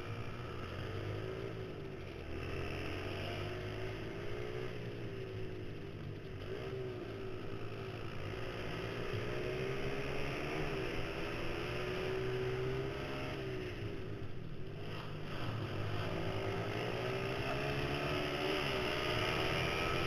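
Mini supermoto pit bike's small single-cylinder four-stroke engine, heard from the rider's helmet, revving up and dropping back again and again as the throttle is opened and closed through the corners.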